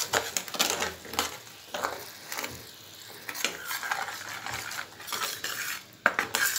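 A utensil stirring and scraping in a pan of sugar-and-candy syrup on the heat, with irregular clinks against the pan as the syrup is cooked down to thicken.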